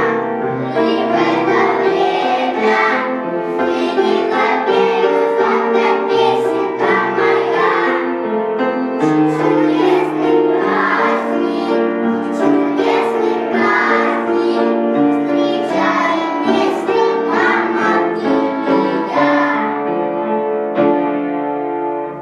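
A group of young children singing a song together over an instrumental accompaniment; the music stops just before the end.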